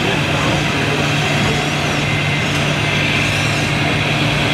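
Radio-controlled scale model trucks running, a steady diesel-like engine drone from their sound modules with faint electric whines rising and falling.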